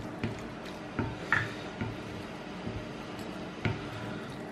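Wooden spoon stirring fusilli pasta and creamy courgette sauce in a glass bowl: soft wet squishing with a few light taps of the spoon against the glass.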